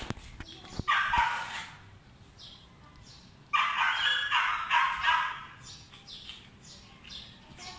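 Animal calls in two bursts, a short one about a second in and a longer run of calls from about three and a half to five seconds in.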